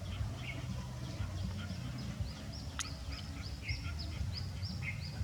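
Birds chirping with short, high, repeated calls that come about twice a second in the second half, over a steady low hum, with one sharp click about three seconds in.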